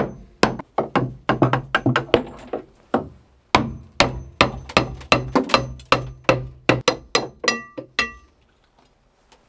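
Claw hammer striking a rusty steel bracket, about four blows a second with a short pause about three seconds in. The last few blows ring briefly, and the hammering stops about a second before the end. The blows are meant to knock the rusted-in bracket loose.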